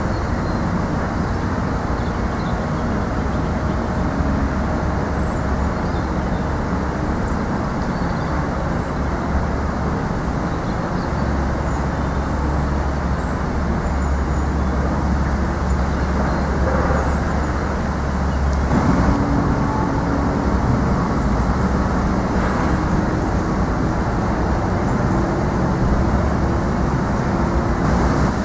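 Steady low rumbling noise, with a faint hum coming in about two-thirds of the way through and a few faint high chirps.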